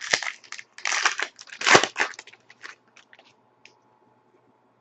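Foil wrapper of a trading card pack crinkling and crackling as it is torn open, a run of sharp bursts with the loudest just under two seconds in, then it stops.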